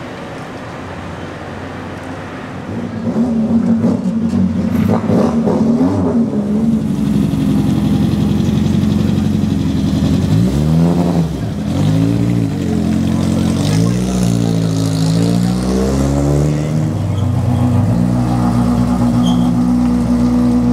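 Rally car engines running as the cars pull slowly past one after another. There are several rises and falls of throttle revving in the middle, then steady running again.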